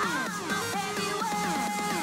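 Electronic background music with quick, repeating falling synth glides over a held tone.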